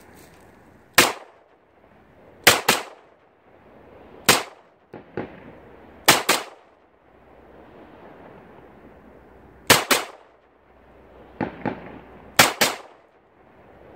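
Celebratory gunfire from pistols: about a dozen sharp shots, often two in quick succession, coming every second or two. Each shot is followed by a short echo.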